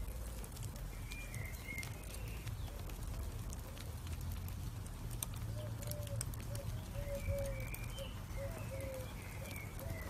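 Glowing charcoal embers crackling with sparse sharp ticks over a low steady rumble, while birds call: a higher wavering call about a second in and again near the end, and a run of short low repeated notes from about halfway through.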